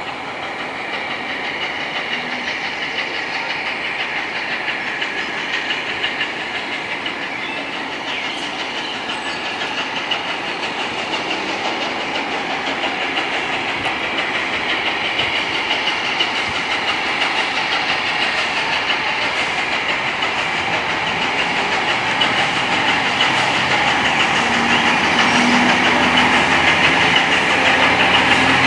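LNER A4 Pacific steam locomotive 60009 'Union of South Africa', a three-cylinder Gresley engine, approaching along the track, its running sound growing steadily louder as it draws closer.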